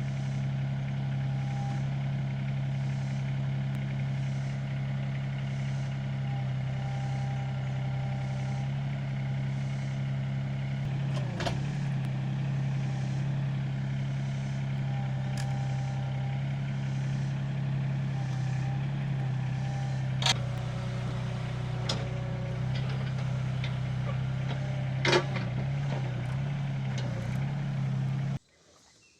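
Mini excavator's diesel engine running steadily as it lifts a heavy oak beam onto posts, with a few sharp knocks along the way. The sound cuts off abruptly near the end.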